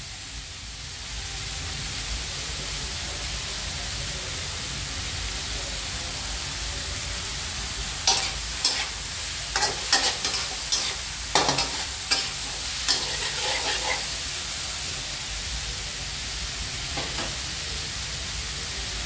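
Shelled shellfish meat and shallots sizzling steadily in an aluminium wok over a gas flame. A metal spatula scrapes and clacks against the wok in a run of stirring strokes from about eight to fourteen seconds in, and once more near the end.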